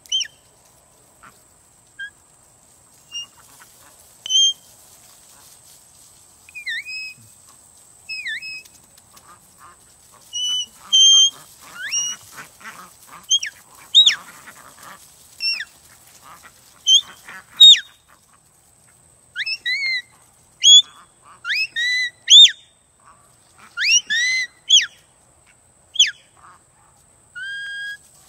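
A flock of domestic ducks calling in short, high-pitched cries, some rising and some falling in pitch, while being chased and herded. The calls are scattered at first and come thick and fast in the second half.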